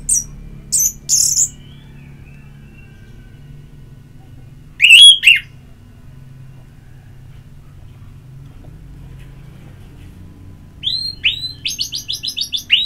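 Orange-headed thrush singing in short phrases: high chirps at the start, one loud slurred note about five seconds in, and a fast run of about a dozen repeated notes near the end.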